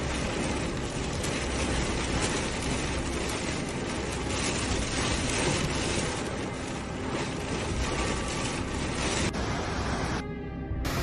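Storm wind and heavy rain in a loud, steady rushing noise, with a low wind rumble on the microphone.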